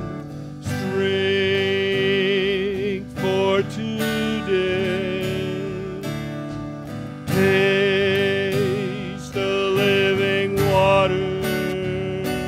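Small worship band playing a slow song: acoustic guitar, electric guitar and drum kit, with a melody of long held notes that waver in pitch.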